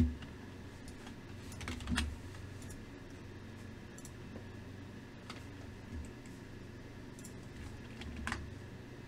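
A few scattered computer keyboard key presses and clicks, at the start, about two seconds in and near the end, over a steady low hum.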